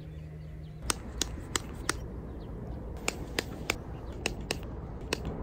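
A series of sharp clicks in three short runs, about three a second, from a mini hand pump being worked on the valve of a flat bicycle tyre.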